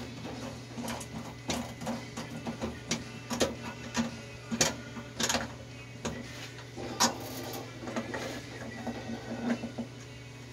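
Irregular light clicks and small metallic rattles of hand work on a fuse box's mounting hardware: nuts and washers on studs, with several sharper clicks in the middle stretch, over a steady low hum.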